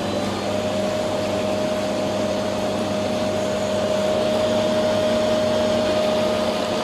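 Inflatable spa's jet blower in its control unit running steadily on the third jet setting, a steady whine coming in about half a second in over the rushing air noise, getting a little louder a few seconds later.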